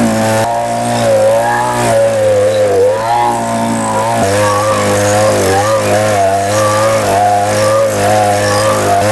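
Small two-stroke petrol chainsaw engine running fast, its pitch rising and falling as the throttle is worked.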